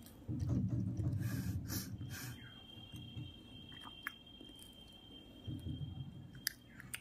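Close-up chewing of a sticky, sugar-syrup-coated candied orange piece, with wet mouth sounds. The chewing is loudest in the first three seconds and comes again about five and a half seconds in.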